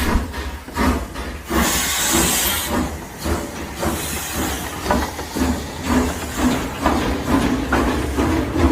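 Steam locomotive running, its exhaust chuffing in an even rhythm of about two to three beats a second over hissing steam and a low rumble.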